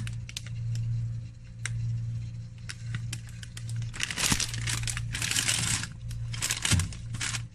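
Plastic packaging crinkling and rustling as items are handled, in irregular bursts with small clicks, heaviest about four seconds in and again near the end, over a steady low hum.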